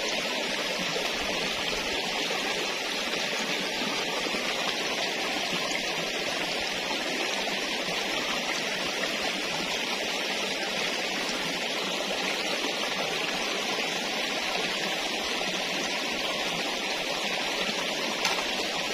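River water flowing over a shallow, rocky bed: a steady, even rushing noise with no break.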